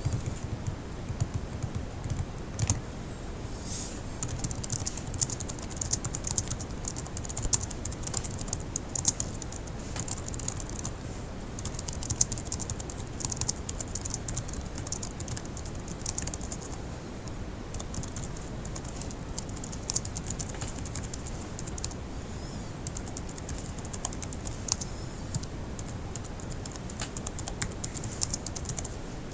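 Fast typing on a laptop keyboard: a dense, continuous run of light key clicks, thinning briefly about two-thirds of the way in.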